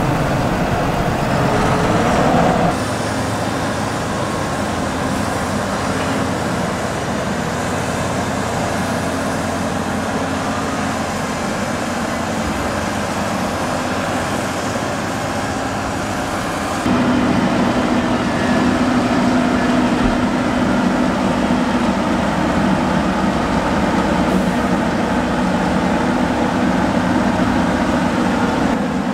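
Heavy farm tractor diesel engines running steadily, the sound changing abruptly about three seconds in and again past halfway. In the last part a tractor engine hums louder and steadier as a Case Puma pushes maize silage out of its push-off trailer.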